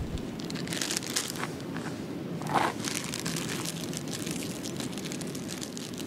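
A clear plastic food wrapper crinkling as it is handled and opened, in a quick run of crackles with one louder crinkle about two and a half seconds in.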